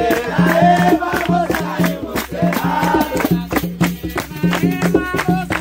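Samba de roda: a group singing, with rhythmic hand clapping and a rope-tuned atabaque drum keeping an even, repeating beat.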